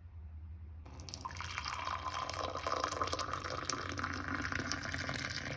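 The finished ginger drink being poured in a steady stream, starting suddenly about a second in, over a low steady hum.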